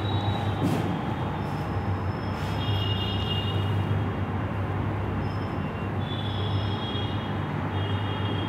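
Marker squeaking on a whiteboard in short high strokes as words are written, several times, over a steady low hum and rushing noise.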